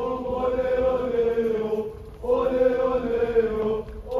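A muezzin's call to prayer: one man's voice chanting long, held, gently wavering phrases, with a short pause about two seconds in and another near the end.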